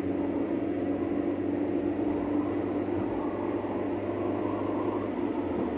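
Steady road and engine noise inside a car's cabin while cruising on a motorway: an even, unchanging low drone.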